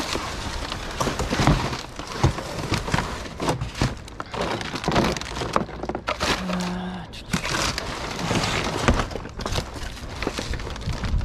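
Cardboard, plastic packaging and foam rustling, crinkling and crunching as a gloved hand digs through a dumpster full of debris, with irregular knocks and snaps as items are moved and shifted.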